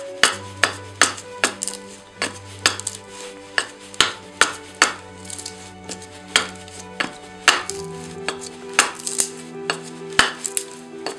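Hatchet chopping into an ash branch held upright on a wooden chopping block, hewing it to shape. The sharp chops come steadily, about two to three a second, with background music underneath.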